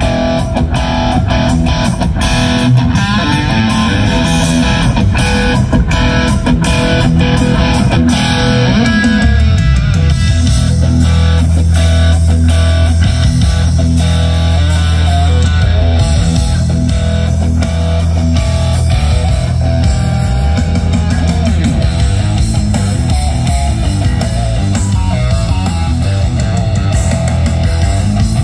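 Loud rock music with electric guitar and no singing, played through a large outdoor stage PA of line-array speakers and subwoofers. Heavy, sustained bass notes come in strongly about ten seconds in.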